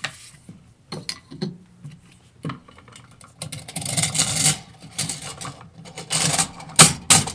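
Metal parts of an AR-15 rifle being handled and fitted together by hand: scattered clicks and clinks, a scraping sound lasting about a second around the middle, and a quick run of sharp clicks near the end.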